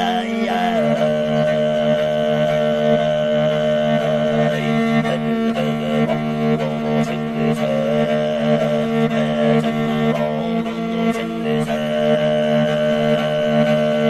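Morin khuur (Mongolian horse-head fiddle) bowed over a steady low drone, with Mongolian throat singing; a wavering melody moves above the held low tones, and the drone drops to a lower pitch about a second in.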